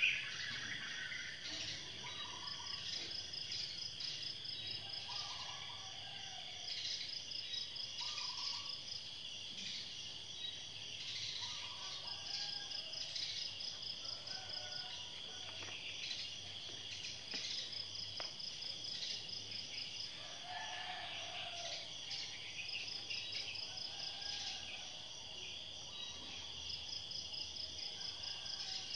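Insects chirping and trilling steadily, with a bird giving short repeated calls every couple of seconds. A brief knock at the very start.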